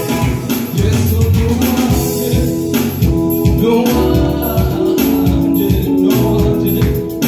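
Live gospel praise music: a group of singers on microphones sings together over an electric keyboard and a steady beat.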